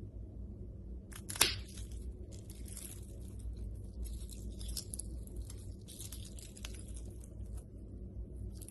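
Slime being squeezed and pressed by hand, giving a dense crackling of small pops and crunches, with one sharper pop about a second and a half in. A steady low hum runs underneath.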